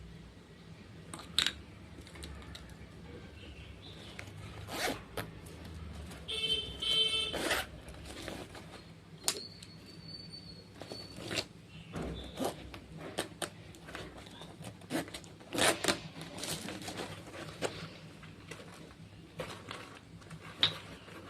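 Hands opening and handling parcel packaging: scattered rustles, clicks and scrapes, with a brief rapid zip-like rip about six to seven seconds in.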